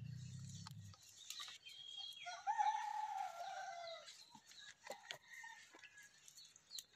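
A rooster crowing once, a single call of about two seconds that sags slightly in pitch at its end. A low hum stops about a second in, and faint clicks are scattered through the rest.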